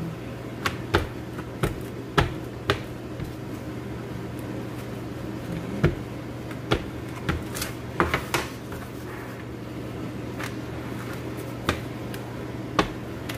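A wooden rolling pin rolls whole-wheat dough thin on a wooden board, with irregular sharp knocks and clicks as the pin and hands strike the board. A steady low hum runs underneath.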